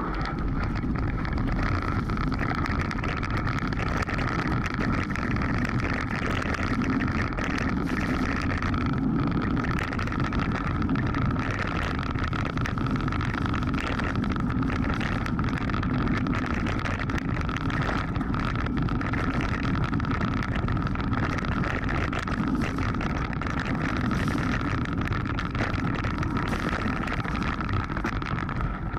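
Mountain bike riding fast over a rocky forest singletrack: a continuous rumble of tyres on stones with constant clattering and rattling of the bike, a steady high hum running underneath, and wind buffeting the action camera's microphone.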